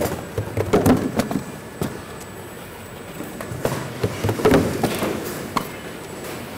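Cardboard cartons and plastic trays knocking and clattering as they are handled by hand at a packing conveyor, in two clusters of quick knocks a few seconds apart.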